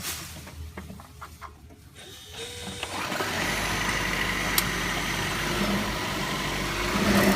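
Toyota Prius pulling away and driving. A steady droning noise builds up about two and a half seconds in and then holds. It is the noise of a worn wheel bearing, which sounds like a jet airplane.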